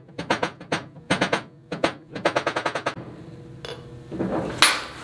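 Quick runs of light mallet taps, about ten a second, driving a new oil seal into a Yanmar KM2-A transmission housing. The taps stop about three seconds in, and there is a single clatter near the end.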